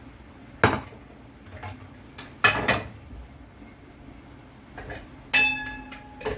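Metal cooking pots and utensils clattering: three sharp clanks, the third one ringing on briefly.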